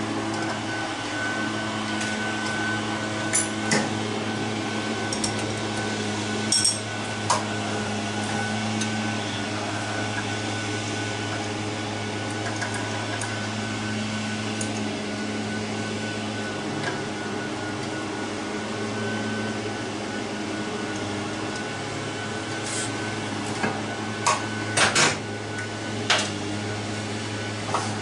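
Scattered metallic clicks and clinks of hand tools and carburetor fittings being handled during carburetor removal, a few early and a tighter cluster near the end. A steady machine hum runs underneath.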